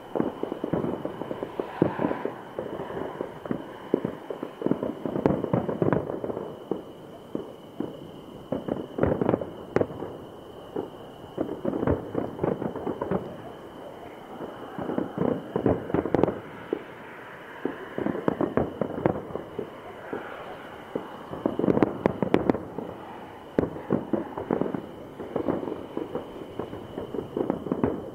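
Aerial firework shells bursting in a display, with clusters of bangs and crackling that come in waves every few seconds.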